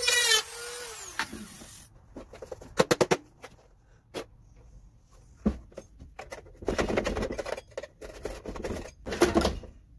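A handheld rotary tool grinding briefly, then switched off, its whine falling in pitch as it spins down over about a second. It is followed by scattered clicks, knocks and scraping of hard plastic as the chainsaw's battery slot is handled and checked.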